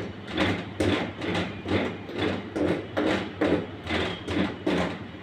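Spiked pizza dough docker rolled quickly back and forth over rolled-out pizza dough on a stainless steel table, about three rasping strokes a second, pricking the base so it won't puff up in the oven.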